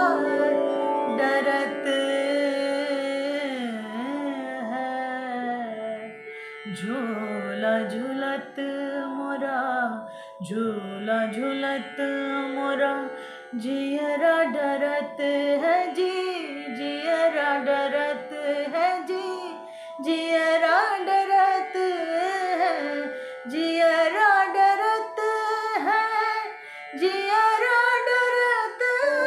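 A woman sings a jhoola, a Hindustani swing song, solo, with ornamented glides and held notes and short breaks between phrases. Steady held tones from an accompanying drone run underneath.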